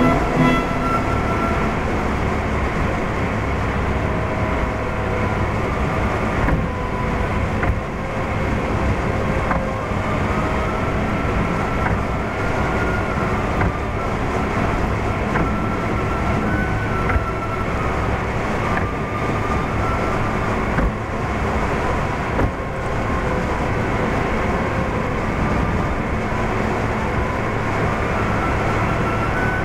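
Steady tyre and engine noise of a car cruising at motorway speed, heard from inside the cabin.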